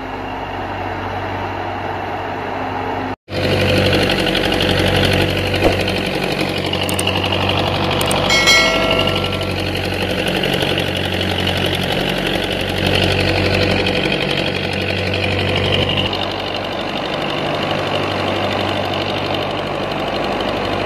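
Tractor-driven wheat thresher at work: the tractor's diesel engine runs steadily under load together with the thresher's churning. Its low drone swells and eases every couple of seconds as sheaves are fed in.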